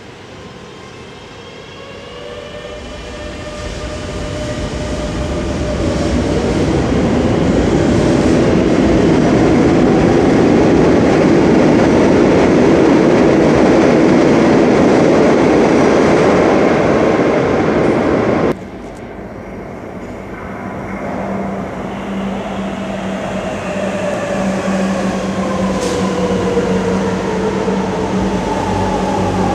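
Electric metro trains. One pulls out with its traction motors whining up in pitch, building to a loud running rumble as it passes. Then, about two-thirds of the way in, another train runs close alongside, its motor whine falling in pitch as it slows, over a steady low hum.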